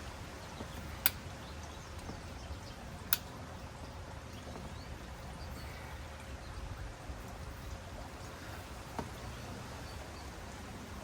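Hand-squeezed ratcheting pipe cutter working through 2-inch PVC pipe: two sharp clicks about two seconds apart, then a fainter one near the end, over a low steady background hum.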